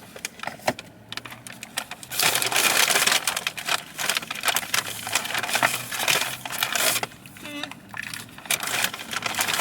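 Paper takeout bags and food wrappers rustling and crinkling as the food is unpacked and handed around, in irregular crackly bursts.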